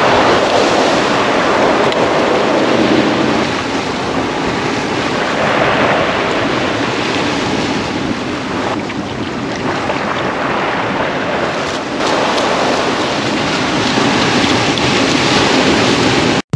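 Ocean surf breaking and washing against a rock platform, a steady rush that swells and eases.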